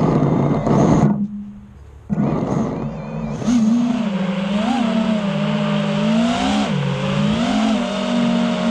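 5-inch FPV racing quadcopter's brushless motors and propellers whining under hard throttle. The throttle is chopped about a second in and punched back up about two seconds in. After that the whine holds, rising and falling in pitch as the throttle changes.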